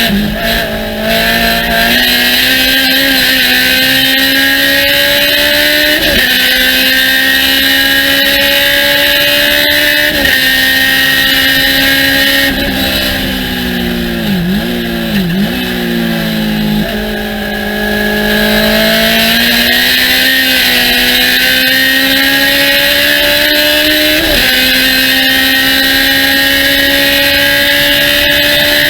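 Race car engine pulling hard through the gears: the pitch climbs slowly in each gear and drops sharply at each upshift, with shifts about 2, 6 and 10 seconds in and again late on. In the middle the revs fall away and dip and rise as it brakes and downshifts for a corner, then it accelerates again. A steady hiss of wind and road noise runs underneath.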